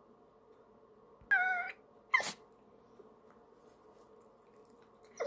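Toy poodle giving a short, high-pitched whine, then a sharp yip about a second later, sulking at its owner's pretend goodbye.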